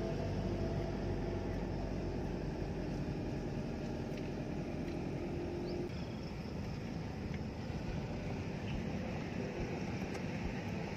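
A car driving on a paved road, heard from inside the cabin: a steady rumble of engine and tyres. A faint steady hum in the first half stops about six seconds in.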